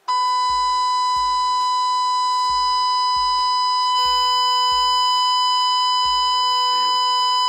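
Steady test tone of about 1 kHz from a PAM8403 class-D amplifier driven to maximum, clipping into a harsh, buzzy tone with strong overtones, which grow stronger about four seconds in. It starts abruptly and cuts off abruptly near the end.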